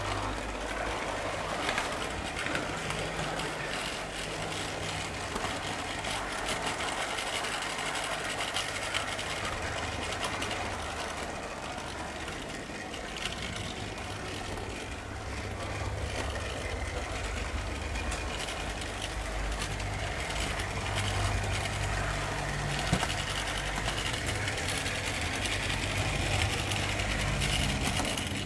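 HO-scale model train running along its track, heard from a camcorder riding on one of its wagons: a steady whirr of the small locomotive motor and wheels rolling on the rails, rising and falling a little, with occasional light clicks.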